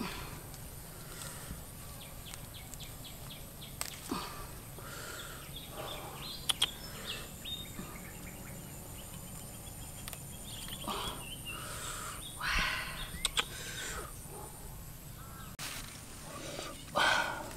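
Leafy branches rustling and twigs snapping as small wild fruits are pulled off a tree by hand, in short scattered bursts with a few sharp clicks. Near the end, louder rustles and knocks as the fruits go into a wicker basket.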